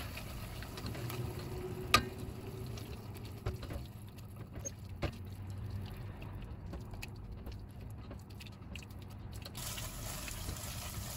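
Tomato paste frying with chopped tomato and onion in olive oil in a stainless steel pot, a quiet steady sizzle and crackle as a silicone spatula stirs it and scrapes the bottom, the paste being cooked until its aroma comes out. A few light sharp knocks sound, about two and five seconds in.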